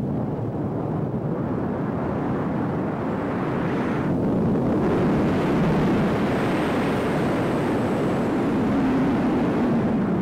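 Steady wind rushing over the camera microphone during a descent under an open parachute, close to landing.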